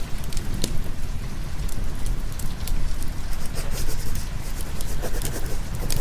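Steady rain mixed with the sharp, scattered crackles of a wood fire, over a constant low rumble.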